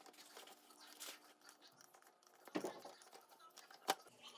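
Faint clicks and light taps of objects being handled, with two sharper knocks, one a little past halfway and one near the end.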